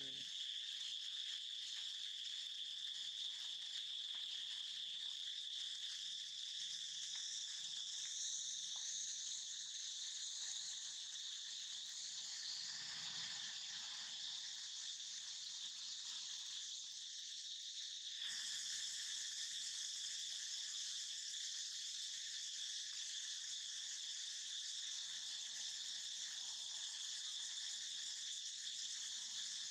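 Steady, high-pitched chorus of insects, with a second, higher layer of buzzing coming in suddenly about two-thirds of the way through.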